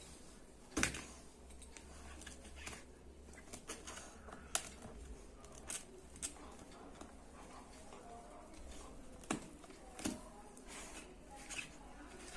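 Faint, scattered clicks and knocks, about half a dozen spread irregularly over quiet room tone.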